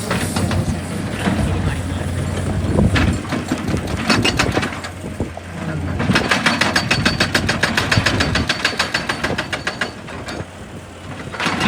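Excavator at work, its engine running steadily. About halfway through, a fast, even clatter of clicks runs for some four seconds.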